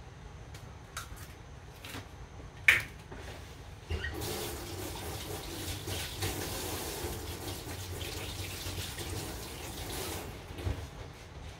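A few light clicks and one sharp knock, then a kitchen tap running into the sink for about six seconds before it is turned off.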